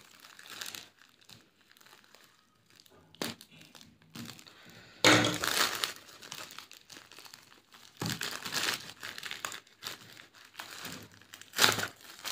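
Plastic mailer bag crinkling and tearing as it is pulled open by hand, in irregular bursts of rustling, the loudest about five seconds in.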